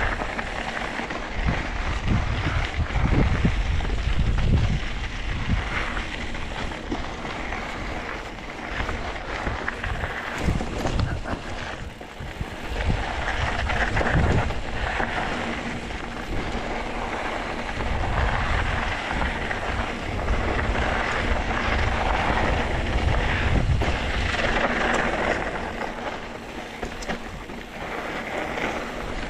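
Wind buffeting the microphone: an uneven low rumble in gusts over a steady rushing noise.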